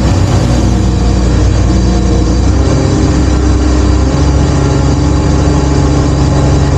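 Crane's diesel engine running loudly, its pitch stepping up and down as the engine speed changes with the work, with a shift about four seconds in.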